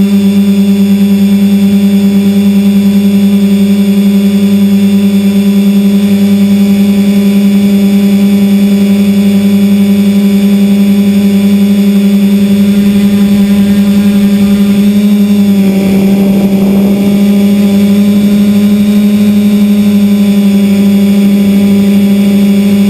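Tricopter's electric motors and propellers running, heard from the camera on the craft itself: a loud, steady hum with a constant pitch. About two-thirds of the way through the pitch wavers briefly and the sound turns rougher, then settles again.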